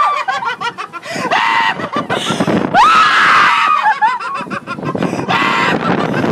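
People screaming in fright on a swinging amusement-ride gondola: several loud shrieks one after another, each rising sharply in pitch, the longest about three seconds in.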